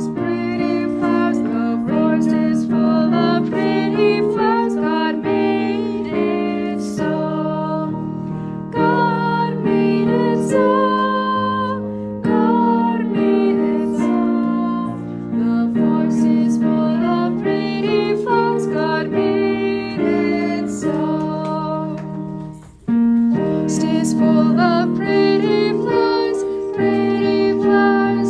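Piano music playing a gentle children's song, with one brief pause about 23 seconds in.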